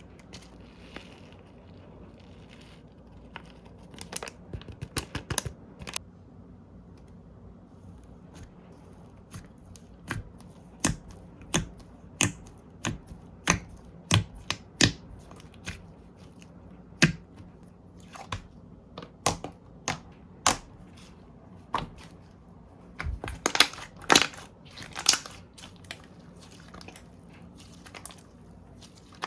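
Slime being played with by hand, making irregular sharp clicks and pops. They come in a quick flurry about four seconds in, as scattered single pops through the middle, and in another dense flurry near the end.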